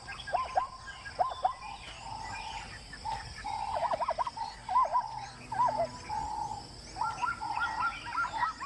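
Wild animal calls: many short, arching calls in quick clusters of two to five, over a steady high-pitched insect drone.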